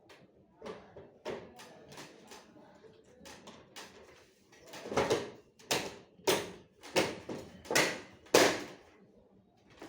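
A series of hard knocks and clacks, as of parts being handled or tapped during printer repair work. Light ones come first, then six louder knocks about two-thirds of a second apart in the second half.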